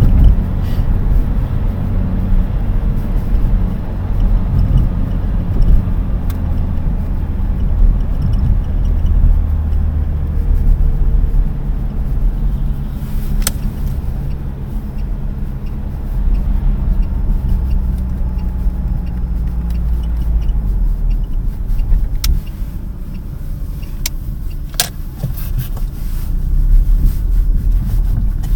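Lada Priora sedan in motion: steady low rumble from the car, with faint intermittent creaks and a few sharp clicks from the right-hand bonnet hinge working as the body flexes. The owner reckons a strut tower brace would probably stop the hinges creaking.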